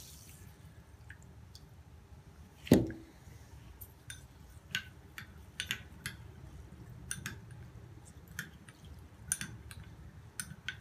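Water poured briefly from a glass into a glass bowl of crushed fenugreek and nigella seeds, then a single knock, followed by light, irregular clicks against the glass bowl as the soaking seeds are stirred.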